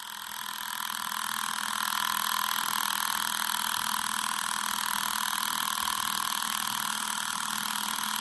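Microwave oven running: a steady hum and whir that fades in over the first couple of seconds and then holds even.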